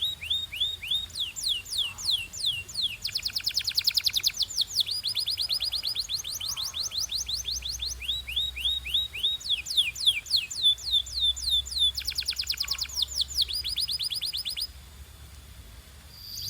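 Domestic canary singing, a fast run of repeated trilled notes that switches to a new note type every second or so. The song stops shortly before the end.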